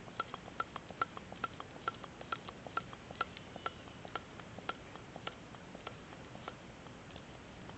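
Air pump being worked to charge a homemade flashlight air gun to 150 psi: a steady run of short sharp clicks, about two to three a second, one with each pump stroke, thinning out and stopping near the end.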